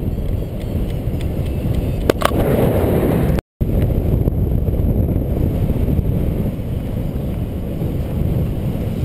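Airflow buffeting the microphone of a paraglider pilot's harness-mounted camera in flight: a steady, loud, low rushing noise. A couple of short clicks come about two seconds in, and the sound breaks off for an instant at a cut a little later before the same rush resumes.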